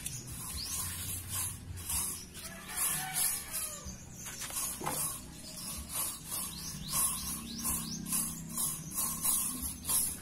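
Short hissing bursts of a shine spray being sprayed onto a motorcycle's seat and side panels, repeating about once or twice a second.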